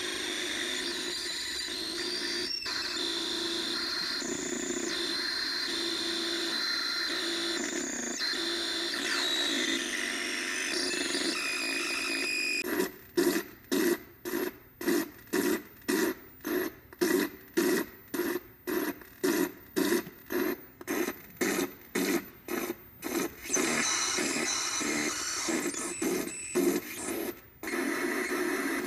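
OM-BOT Psychic Cell noise generator, with four oscillators, four clocks and four filters, putting out harsh, steady noise with shifting tones. About thirteen seconds in, a clock gates it into a rhythmic pulse of about two hits a second. After about ten seconds it returns to steady noise.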